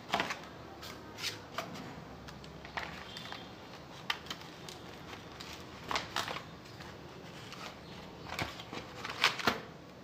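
Irregular taps, clicks and rustles of a keyboard being unpacked by hand: the cardboard box handled, the keyboard moved inside it, and its cable and plastic wrap being fiddled with. The sharpest pair of clicks comes near the end.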